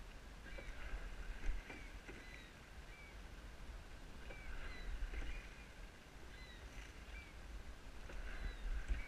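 Wind rumbling on the microphone of a rowing shell underway on open water, with water noise that swells every few seconds. Short high chirps recur throughout.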